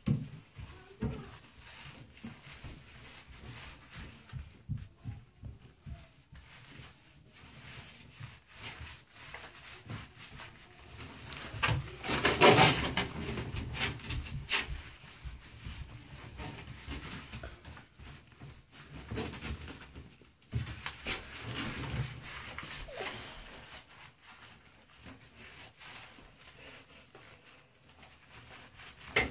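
A wet, lathered puppy being scrubbed by hand in a bathtub: rubbing and handling noises with scattered knocks, and a louder burst of rushing noise about twelve seconds in.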